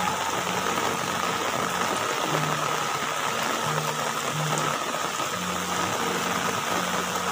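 Steady rain falling in a continuous hiss, with background music playing a slow line of low held notes.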